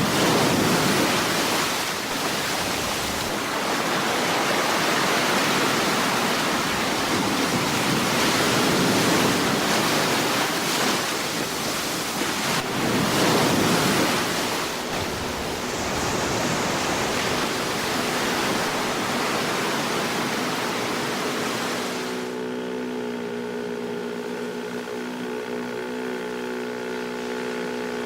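Sea surf washing in slow, surging swells. About 22 seconds in, the wash falls away and a steady engine drone with an even hum takes over, the motor of a landing craft.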